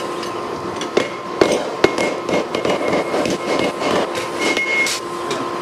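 Hammers striking a red-hot lawnmower blade on an anvil as it is forged into a machete: a striker's hammer and the blacksmith's hammer land in a fast run of blows, several a second, starting about a second in.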